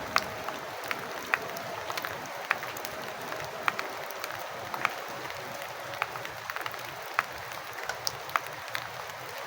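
Steady rain falling, with sharp drips of water landing close by at irregular moments, about one or two a second.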